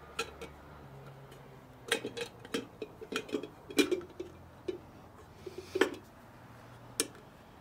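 Light metallic clicks and clinks as a chrome headlight ring and LED headlight unit are handled and seated in a motorcycle's chrome headlight housing. The taps come in scattered clusters, with a last sharp click near the end.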